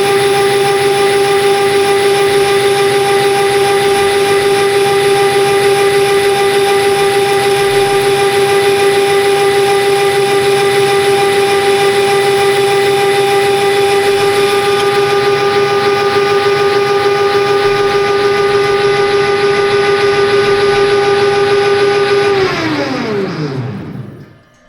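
Metal lathe running at steady speed with a loud, even hum, then switched off about 22 seconds in, its pitch falling quickly as the spindle and motor spin down to a stop.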